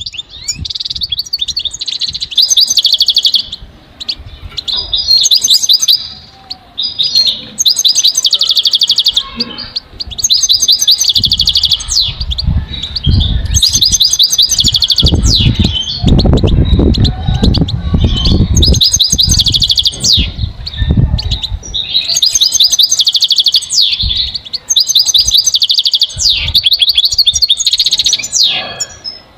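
European goldfinch singing: rapid twittering phrases a few seconds long, separated by short pauses. A low rumble sits underneath for several seconds in the middle.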